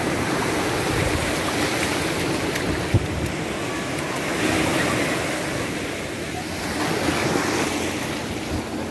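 Sea waves breaking and washing up a shallow beach: a steady rush of surf that swells and eases, with one sharp knock about three seconds in.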